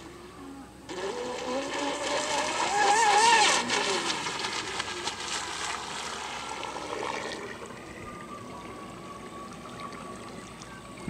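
Electric RC speedboat running at speed: its motor whine wavers in pitch over the hiss of water off the hull and is loudest about three seconds in. It then fades, and from about eight seconds a thinner, steady whine remains.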